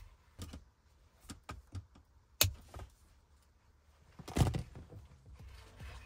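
Scattered clicks and knocks of a gear-boot's hard plastic trim frame being handled and pressed into a car's centre console, with light rustling of the boot material; a sharp click about two and a half seconds in and the loudest knock about four and a half seconds in.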